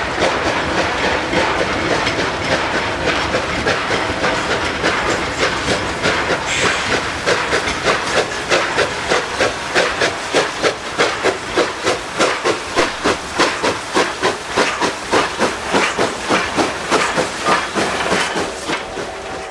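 Narrow-gauge steam locomotive working past: train cars roll by at first, then, from about seven seconds in, the engine's exhaust chuffs in a steady beat of about two and a half a second, with a short hiss of steam just before the beat begins. The chuffing fades near the end.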